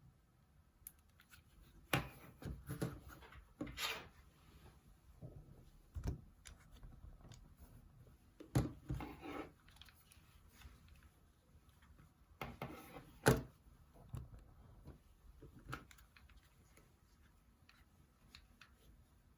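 Irregular handling noise: scattered clicks, knocks and rubs, in small clusters with quiet gaps between them, and no ringtone playing.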